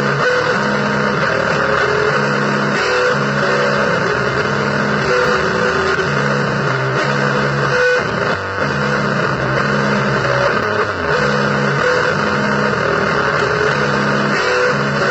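Noisy blues music on distorted electric guitar: a low chord riff repeats roughly once a second with short higher notes, under a dense wash of noise.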